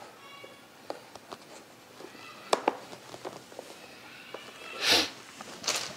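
Hard plastic parts of a small turtle tank being handled and fitted by hand: scattered light clicks and taps, with two brief scraping rustles near the end.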